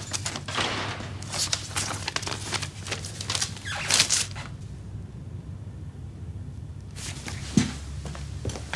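Paper rustling as sheets are handled and leafed through, with light crackles and clicks, then a quieter stretch and a single low thump near the end, over a steady low hum.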